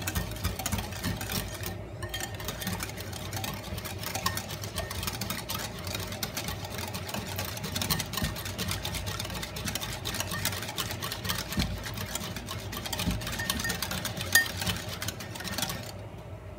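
Wire balloon whisk beating a cream, milk, butter and sugar mixture in a bowl: a rapid, steady clicking and scraping of the wires against the bowl as the frozen cream lumps are worked smooth.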